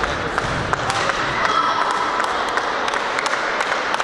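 Badminton rally: sharp, irregularly spaced hits of rackets on the shuttlecock, over the steady noise of the sports hall.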